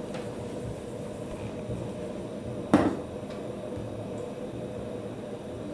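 A stainless steel mixing bowl set down on the kitchen counter with a single clunk about three seconds in, over a steady hum.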